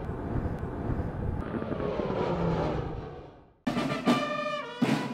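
A military aircraft's engine passing for about three seconds, then fading out. After a brief gap a short music sting starts, with held tones that slide down in pitch near the end.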